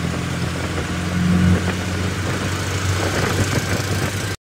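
Auto-rickshaw engine running while under way, heard from inside the open passenger cabin as a steady low hum over a constant hiss. It swells slightly about a second and a half in, then cuts off abruptly near the end.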